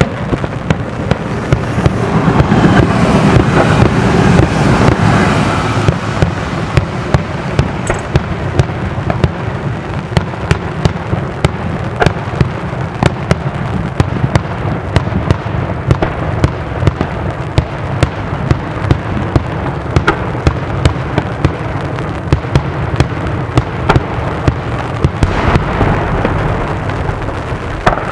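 Daytime fireworks display: aerial shells bursting in a rapid, unbroken barrage, several bangs a second over a continuous rumble.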